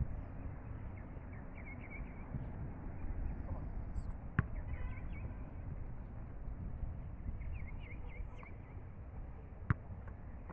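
Wind rumbling on the microphone, with two sharp thuds of a football being struck, about four seconds in and near the end, and faint chirps of small birds.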